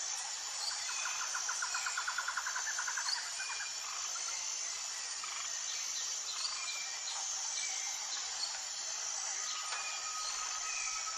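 Wild birds chirping over a steady high chorus of insects, with a rapid trill in the first few seconds and a steady held tone joining near the end.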